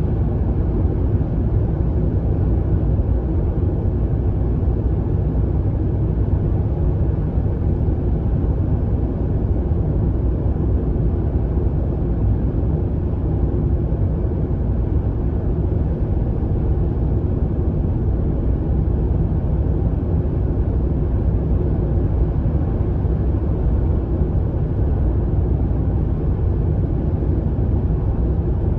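Steady low rumble of a car cruising through a long motorway tunnel, heard from inside the cabin: tyre and road noise with the engine, even and unchanging.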